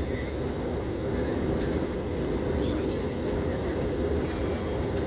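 Steady low rumble of a jet airliner's engines and airflow heard from inside the passenger cabin during descent for landing.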